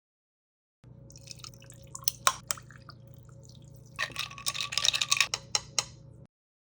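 Liquid dripping in a glass, with scattered small clicks and clinks and a busier stretch of liquid sound about four seconds in lasting about a second. The sound starts about a second in and cuts off abruptly near the end.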